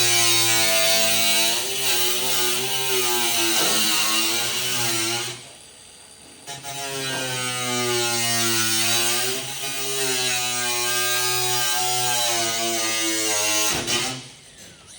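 Angle grinder cutting sheet metal, its motor whine sagging and wavering in pitch under load over a steady hiss. The grinder stops about five seconds in, starts again a second later, and stops once more near the end.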